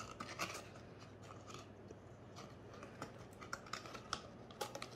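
Light clicks and crinkles of a cardboard box being handled, its flaps pressed and folded, with a few louder clicks at the start and near the end.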